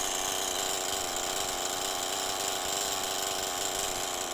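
Chainsaw engine idling steadily.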